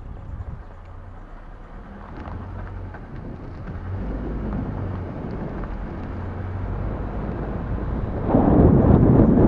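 Wind buffeting an action camera's microphone over the low rumble of a slowly moving vehicle. The wind noise builds, then becomes much louder and rougher about eight seconds in.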